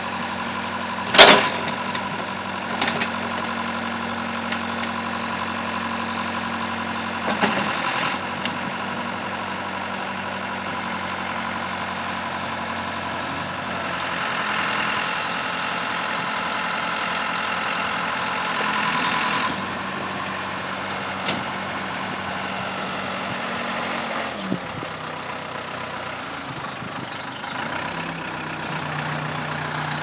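Case 580 CK Construction King backhoe's engine running steadily while the backhoe boom and bucket are worked. There is a sharp clank about a second in and a few lighter knocks. The engine grows louder for several seconds in the middle, then settles back.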